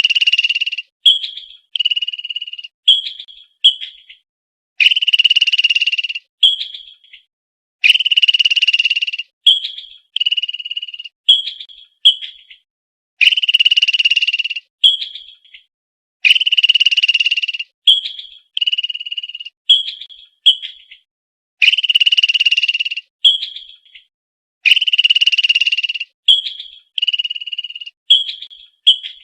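Squirrel call sound effect repeated over and over: a long buzzing call of about a second and a half, then four or five short chirps, the same pattern coming back about every three seconds.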